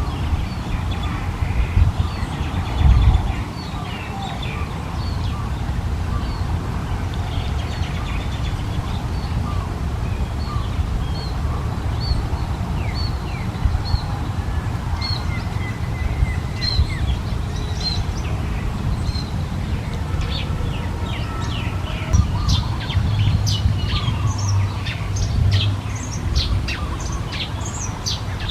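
Birds chirping: short, high chirps repeating every second or so, becoming much busier and denser in the last third, over a steady low rumble.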